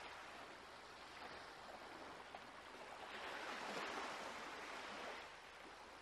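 Faint, steady hiss of background noise, swelling a little about three seconds in and easing off again after five.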